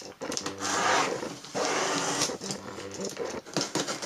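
Box cutter slicing through packing tape on a corrugated cardboard box, a scratchy tearing rasp, with low pitched vocal sounds alongside.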